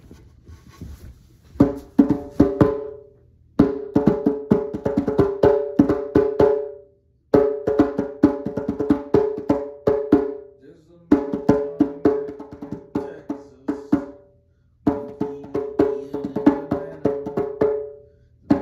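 Hand percussion played in quick runs of strikes with a hollow, pitched, woody ring, in about five bursts of a few seconds each that stop abruptly with short pauses between them; the first begins a little over a second in.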